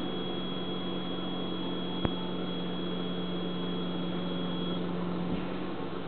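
Steady rushing hiss of a lampworking bench torch burning, over a low steady hum of workshop equipment. A single sharp click about two seconds in, and a faint high whine that stops near the end.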